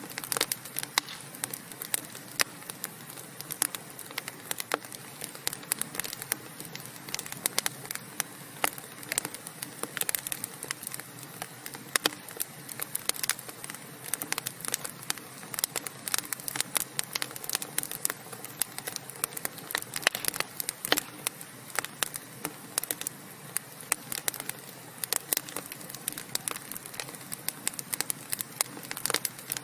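Wood fire burning in a fireplace: a steady soft hiss with many irregular sharp crackles and pops from the burning logs.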